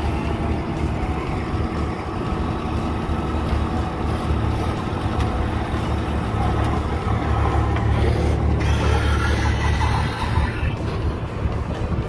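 A motor vehicle or heavy machine engine running steadily, a low rumble.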